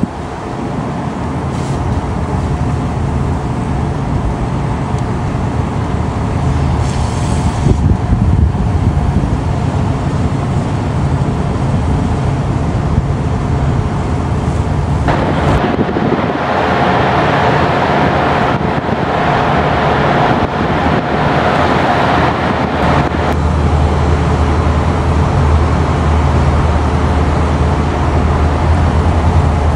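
The anchor-handling crane barge's engine and crane machinery run steadily, a constant low hum with a held whine. A hissing rush swells for several seconds past the middle, while a water jet hoses down the raised anchor.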